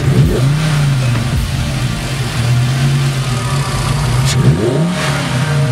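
Volkswagen VR5 engine fitted with a cone air filter, revving: revs held steady between a few rises and falls.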